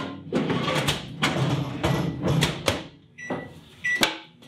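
A quick run of knocks and clatter, then a microwave oven's electronic beep twice near the end, followed by one sharp knock.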